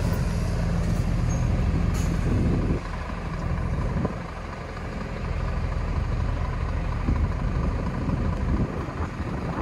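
Heavy lorry diesel engines. One lorry passing close runs loud for the first three seconds, then drops away to a lower, steadier engine sound as another lorry moves slowly closer.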